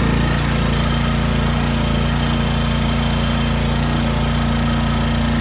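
Toro Timemaster 30-inch mower's single-cylinder engine running steadily, with no surging, after sitting for five to six months.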